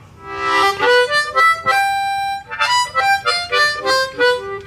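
Diatonic harmonica played in cupped hands: a quick run of short notes, a longer held note about two seconds in, then more quick notes ending on a held lower note.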